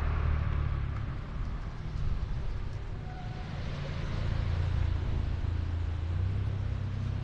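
City street traffic: a steady low rumble of cars, swelling and easing as vehicles pass.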